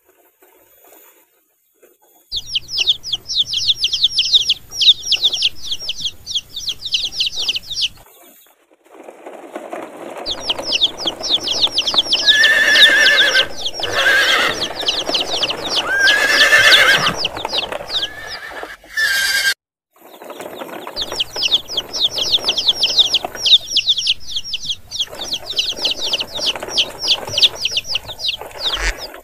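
Chickens and chicks calling: fast, high peeping calls repeated several times a second in three stretches, with a louder, busier mix of clucking and cries in the middle that includes a couple of longer arching calls.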